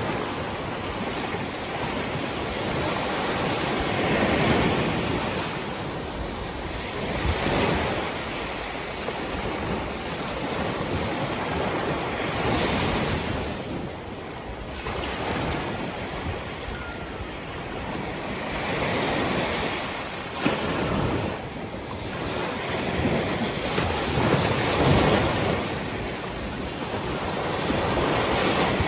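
Gulf of Mexico surf: waves breaking and washing up the beach, swelling and fading every few seconds, with wind buffeting the microphone.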